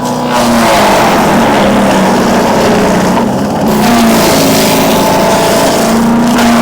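Bilt Hard 224cc, 7.5 hp gas wood chipper running loud at speed, its engine note dipping and recovering several times over a steady rushing noise.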